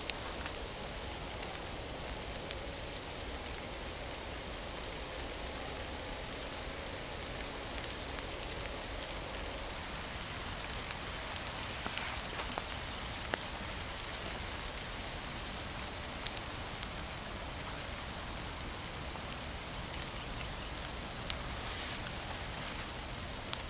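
Steady rain falling, an even hiss, with a few short sharp ticks scattered through it.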